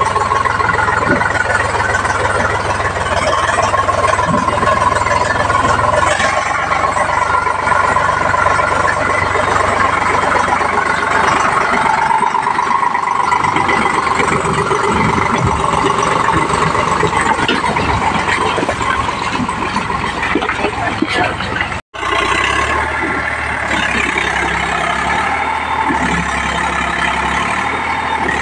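Eicher tractor's diesel engine running hard under load as it drags a loaded trolley through deep mud. The sound cuts out for an instant near the end and then carries on.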